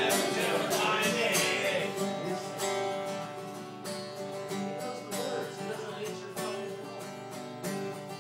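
Acoustic guitar being strummed, a steady run of chords that grows gradually quieter toward the end.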